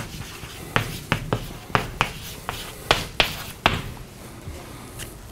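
Chalk writing on a chalkboard: a quick run of sharp taps and short scrapes as each letter is struck, stopping about four seconds in.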